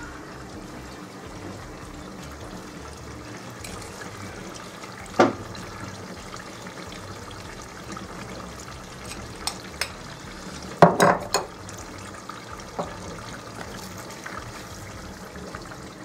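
Diced animal fat rendering in a stainless steel pot, a steady low sizzle and bubble. A metal spoon clinks against the pot a few times while salt is sprinkled in, loudest around eleven seconds in.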